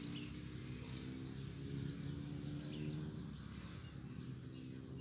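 A few short bird chirps over a steady low mechanical hum, like a distant motor running.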